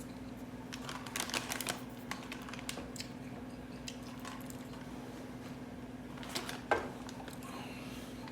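Crisp clicks and crunches of someone biting into and chewing a Chick-fil-A fried chicken sandwich, with a cluster about a second in and a sharp one near the end, over a steady low hum.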